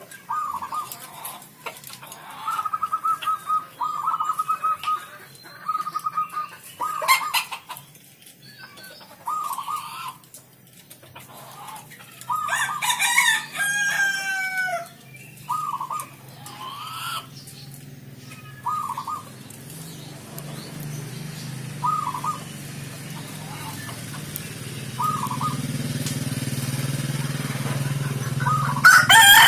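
Zebra dove (perkutut) cooing in short repeated phrases, with long gaps between them in the second half. A rooster crows loudly about 13 seconds in and again at the very end, and a low steady rumble builds over the last ten seconds.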